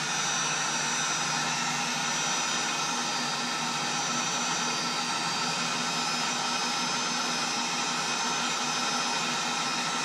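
Electric heat gun running steadily, its fan blowing hot air with a low motor hum, heating a metal barb fitting so nylon fuel line can be pressed onto it.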